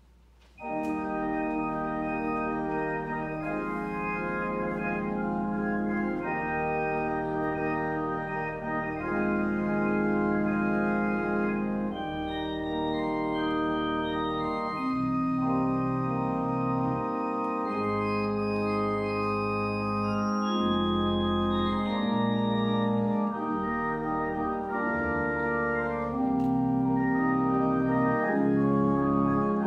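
Church organ playing slow, sustained chords that change every second or two over deep pedal bass notes. The music starts abruptly about half a second in.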